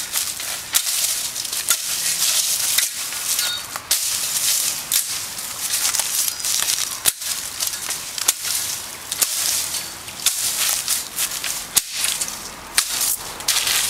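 Machete chopping through leafy brush stems low to the ground, with sharp cuts about once a second over the rustle and swish of leaves and branches being pushed about.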